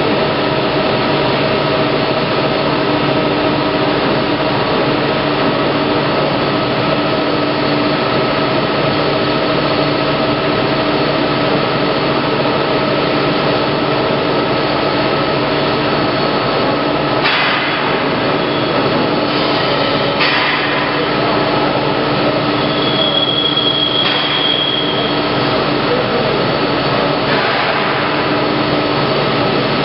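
Plate rolling machine running, a steady mechanical whir with several held tones as it rolls a steel sheet into a cylinder. A few brief scraping sounds come about halfway through and again near the end.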